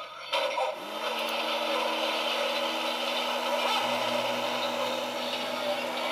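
Model train rolling along its track: steady clatter and rumble of wheels on the rails, with a motor hum that slides up about a second in and then holds steady.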